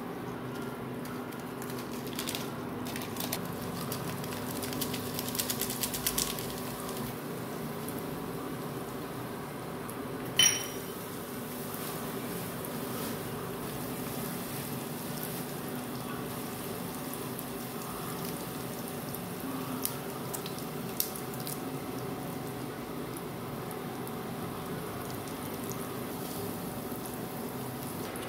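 Kitchen handling sounds over a steady hum: light clinks and rattles as spices go into a steel pot, with one sharp, ringing metallic clink about ten seconds in.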